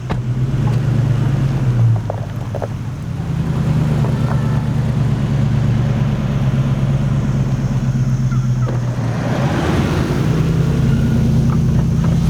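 A road vehicle's engine running while driving, its low hum stepping up and down in pitch a few times. A brief rush of road or wind noise comes about ten seconds in.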